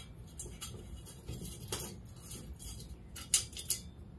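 Light metal clicks and clinks as small metal tubes are fitted by hand into the holes of a jet engine combustor flame tube: a handful of separate sharp clicks, several close together near the end.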